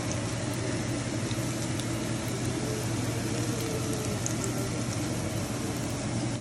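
Oil sizzling steadily around plantain slices frying in a cast-iron skillet, with scattered small pops and a steady low hum underneath.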